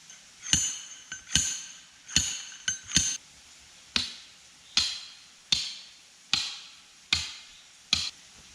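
A hammer striking about a dozen sharp blows, the first few with a metallic ring, then a steady pace of a little more than one blow a second.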